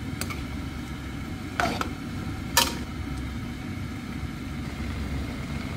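A spatula clacking against a non-stick wok while stir-frying vegetables and prawns: a light tap just after the start, then two louder clacks about a second and a half and two and a half seconds in, the second the loudest. Under them runs a steady low rumble.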